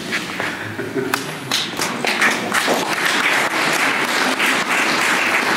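Audience applauding: scattered claps about a second in, building into steady applause.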